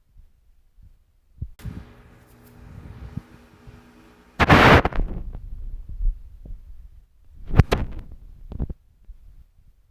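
Stomach growling picked up by a phone pressed against the belly: a pitched, rumbling growl of a few seconds. It ends in a loud noisy burst, and two shorter bursts follow near the end.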